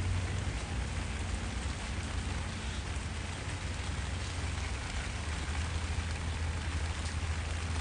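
Heavy rain falling, a steady even hiss, with a steady low rumble beneath it.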